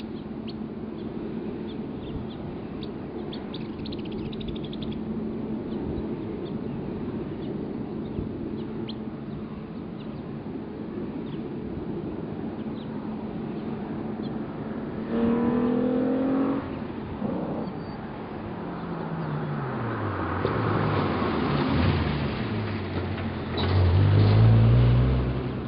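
A 1998 VW GTI's 2.8-litre 12-valve VR6 running through an aftermarket 2.5-inch catback exhaust. It is first heard faint and steady, then accelerating with its pitch rising and falling through the gear changes, and it is loudest near the end.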